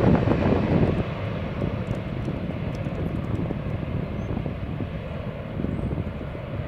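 MV-22 Osprey tiltrotor moving away after a flyby: a loud rumble that drops off about a second in, then carries on as a lower, steady rumble.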